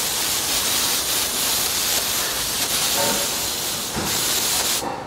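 Aerosol brake cleaner spraying in a long steady hiss onto a rear wheel hub, cutting off near the end.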